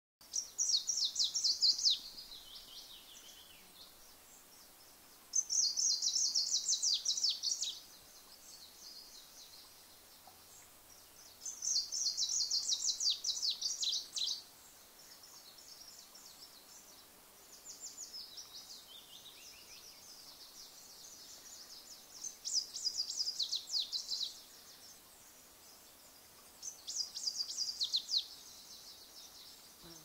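A songbird singing a short, rapid trilling phrase in bursts of about two seconds, repeated every five or six seconds, some phrases ending in a falling tail. Underneath runs a faint steady hiss of wind and a small stream.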